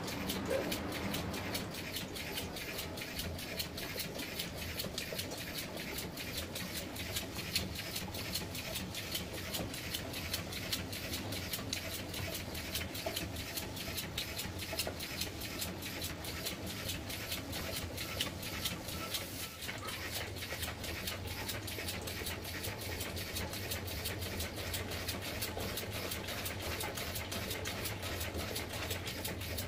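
Homemade two-cylinder steam engine, with cylinders built from bike shock absorbers, running steadily with a rapid, even ticking beat over a low hum.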